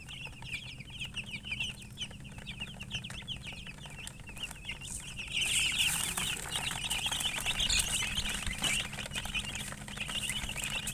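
A group of chicks peeping in rapid, high-pitched, overlapping chirps, louder from about five seconds in, over a steady low hum.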